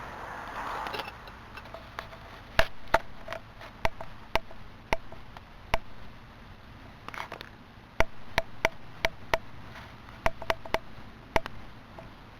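Bonfire crackling: sharp, irregular pops from the burning material, some coming in quick clusters. A soft rush of flame or air is heard in the first second.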